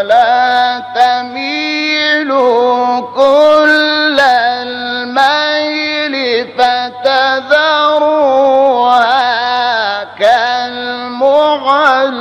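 Quran recitation in a melodic tajweed style: a single voice chanting in long, drawn-out phrases whose pitch rises and falls, with short breaks between them.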